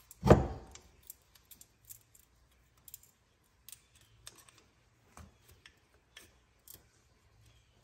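A small pick prying a wheel-speed-sensor cable out of its clip on the wheel carrier: faint, scattered clicks and scrapes of metal on cable and clip, with one loud thump just after the start.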